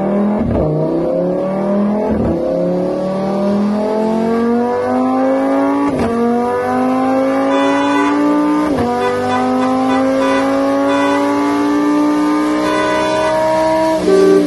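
Car engine accelerating hard up through the gears: the engine note climbs, drops sharply at each of four shifts, then climbs slowly and steadily in the top gear.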